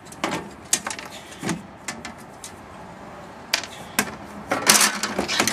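Scattered clicks and knocks of plastic ceiling fan blades and parts being handled and pulled off, with a louder cluster of clatter near the end.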